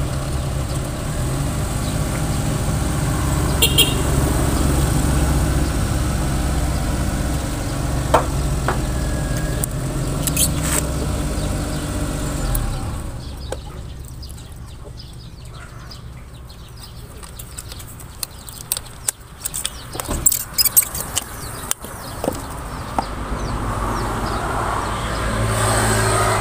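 Diesel engine running steadily with a low rumble, which stops about halfway through; after that come scattered clicks and taps.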